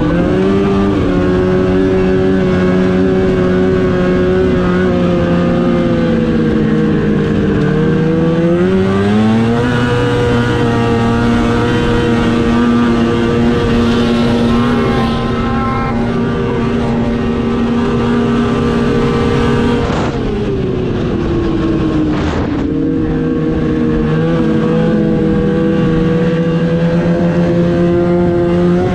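Snowmobile engine running at speed under the rider, its pitch following the throttle: it sags and then climbs again about nine seconds in, drops off sharply about twenty seconds in, and picks back up a few seconds later.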